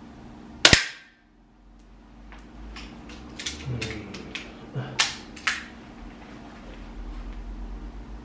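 An airsoft target pistol fires one sharp shot about a second in. It is followed by a run of smaller clicks and knocks, two of them fairly sharp, from the gun and gear being handled, over a steady low hum.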